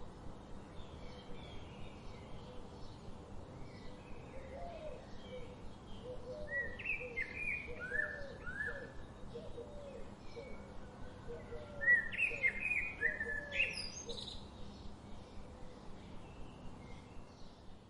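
Several birds chirping, with short notes repeated over and over. Louder bursts of song come twice, once about a third of the way in and again just past the middle.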